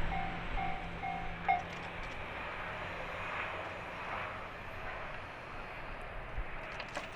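Japanese level-crossing warning bell dinging in an even, rapid repeat, then stopping about a second and a half in, the sign that the crossing is reopening; a low rumble fades out just after, leaving faint outdoor background noise.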